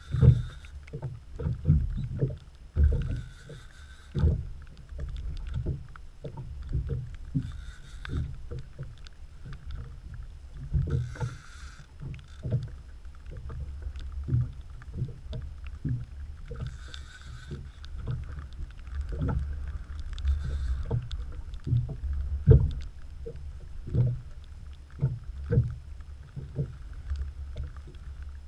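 Water slapping against the hull of a small boat on choppy water: irregular low knocks and slaps over a steady low rumble, with short bursts of hiss every few seconds.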